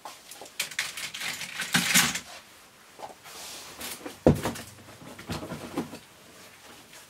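Plastic packaging rustling and toys clattering as items are pulled from a shipping box, with scattered knocks and a sharp knock about four seconds in.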